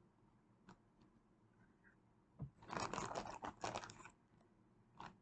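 Rustling and crinkling as small objects are handled, one burst lasting about a second and a half in the middle, with a few soft clicks around it.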